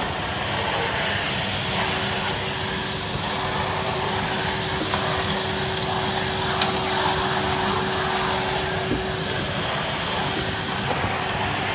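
Numatic Henry vacuum cleaner running steadily, sucking up mess from the floor, with a steady hum under the rush of air.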